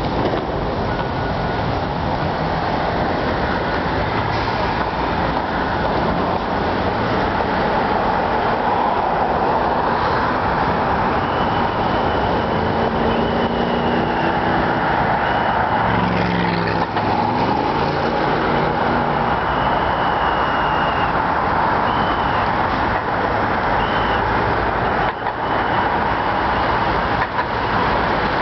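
Steady din of road traffic and construction-site machinery. A thin high whine comes and goes through the middle stretch, and a heavy engine's note rises and falls about halfway through.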